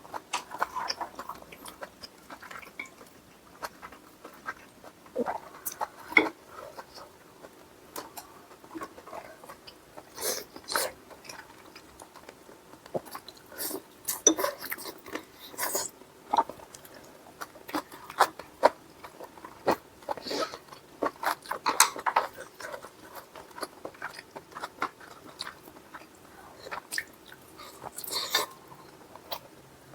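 Close-miked eating: chewing and biting with scattered clicks and taps of cutlery and dishes, spicy braised chicken stew with beef intestine being eaten.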